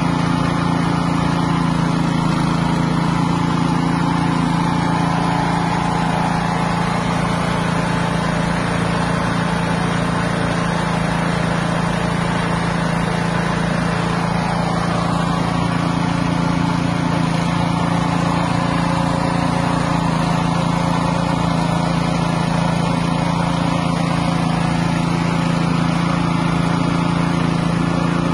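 Small engine driving a floating fish-feed pellet extruder, running at a steady speed as the machine turns out pellets.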